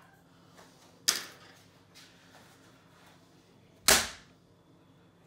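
Two sharp slaps on a wooden tabletop, about three seconds apart. The second is a stiff tooled leather sheath blank landing flat on the table.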